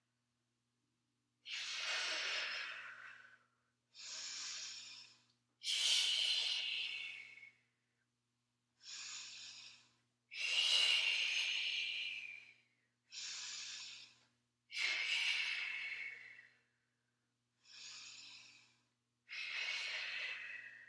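A woman's heavy, audible breathing in a steady rhythm, about nine breaths, longer louder ones alternating with shorter quieter ones, paced to lowering and lifting the legs in a core exercise.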